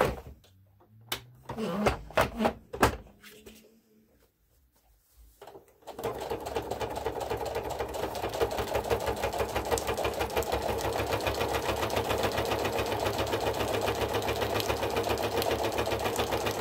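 A few clicks and knocks of the sewing machine being handled. Then, from about six seconds in, the domestic sewing machine runs steadily with a fast, even stitching rhythm as it stitches a fabric panel onto cardstock.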